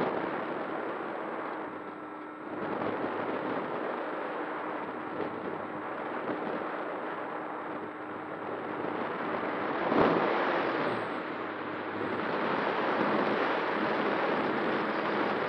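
Onboard audio from a Skua FPV flying wing in flight: steady rushing airflow over the microphone with the faint hum of its pusher propeller motor, swelling louder at the start and again about ten seconds in.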